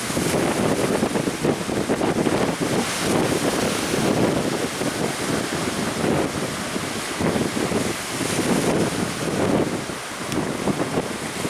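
Strong wind buffeting the microphone over the rush of sea surf, a loud, gusting noise without any clear engine tone.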